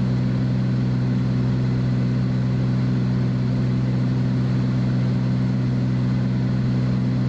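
Steady drone of a Beechcraft Bonanza's piston engine and propeller heard inside the cabin, holding one even pitch and level.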